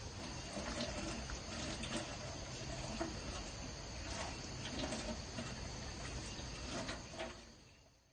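Steady chirring of insects, crickets or cicadas, with faint ticks and taps through it, fading out just before the end.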